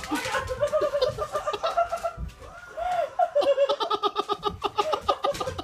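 High-pitched nervous giggling, breaking into a fast run of short laughs from about three seconds in.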